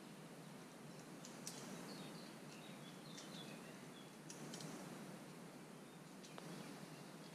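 Quiet outdoor ambience: a faint steady hiss with a few soft scattered clicks and some faint, short, high chirps of small birds in the first half.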